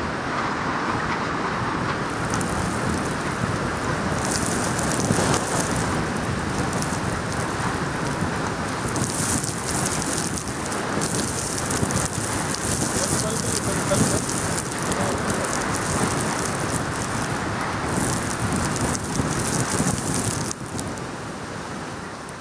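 Heavy rain driven by cyclone-force wind, a steady rushing noise with a hiss that swells and eases in gusts, easing off near the end.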